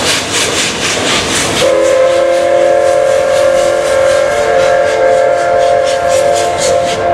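Thomas-liveried steam locomotive (JNR Class C11 tank engine) chuffing steadily at about four beats a second as it hauls coaches. About a second and a half in it sounds a long steam whistle of several tones together, held for about five seconds, with the chuffing carrying on underneath.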